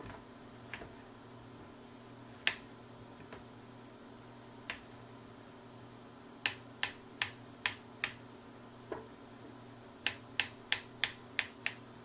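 Kitchen knife cutting a green gourd (labu hijau) on a plastic cutting board: sharp knocks as the blade goes through and hits the board. A few single chops spaced out at first, then two quick runs of about six chops each.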